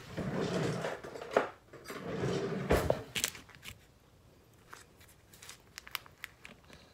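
A foil pouch of moist tea-leaf shisha crinkling as it is shaken and squeezed out over a plate, with a sharp click about three seconds in. Then a spoon scraping inside the pouch in small, scattered clicks.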